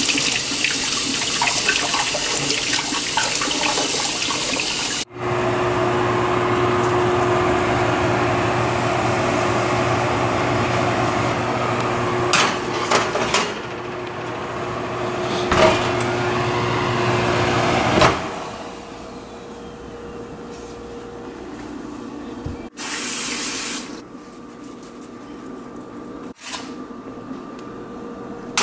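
Kitchen tap running, water splashing over a cup into a stainless steel sink, cut off abruptly. Then a steady hum with a low drone and a held tone, with a few knocks, which stops partway through. Quieter room noise follows, with one short burst of hiss.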